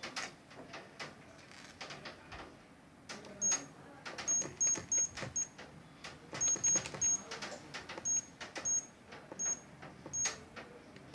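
Wireless security alarm panel beeping as its keypad buttons are pressed during programming: about a dozen short high-pitched beeps, each with a click, at uneven spacing, starting a few seconds in after some faint clicks.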